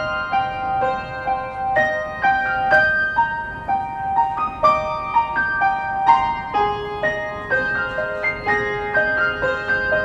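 Background music: a keyboard melody of struck notes, about two a second, over held chords.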